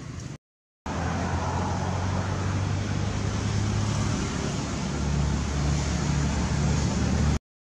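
Steady low hum of a running engine under a rushing noise. The hum shifts lower about five seconds in, and the sound cuts out to silence for about half a second near the start and again near the end.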